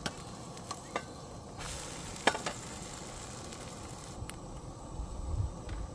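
A vegetable pancake frying in oil in a nonstick frying pan, sizzling steadily, with a few sharp taps and clicks of a spatula against the pan. The sizzle gets louder for a couple of seconds in the middle as the pancake is turned over, and the loudest tap comes at that point.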